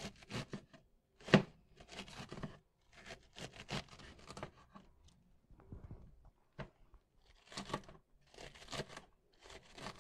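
Kitchen knife shredding a half head of cabbage on a plastic cutting board: repeated crisp, crunchy slicing strokes through the tightly packed leaves, about two or three a second, with one sharper cut about a second and a half in.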